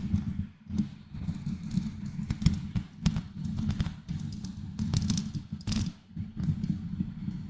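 Fingertips scratching and rubbing directly on a microphone, giving a dense low rumbling rustle with many small taps and clicks.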